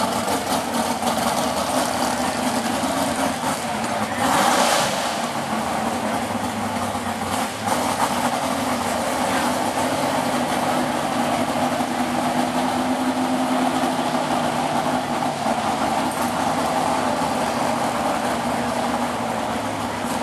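A Ford pickup pull truck's engine running steadily at low speed as the truck creeps across the dirt track, with one brief louder rush about four seconds in.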